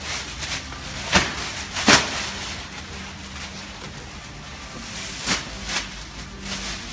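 Tyre-shop workshop noise: four sharp knocks, the loudest about two seconds in, over a steady low hum.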